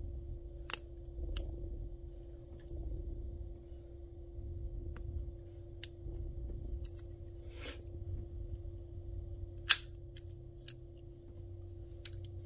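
Scattered light metallic clicks of a lock pick and tension wrench working the pins of a Guard Security padlock during single-pin picking. A sharper, louder click about ten seconds in, as the lock gives and the shackle opens. A steady low hum runs underneath.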